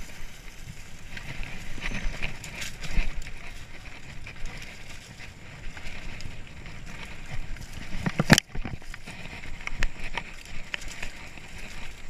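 Mountain bike ridden fast over a dirt singletrack: tyre and trail noise with frequent rattles and clicks from bumps, and a single hard knock about eight seconds in.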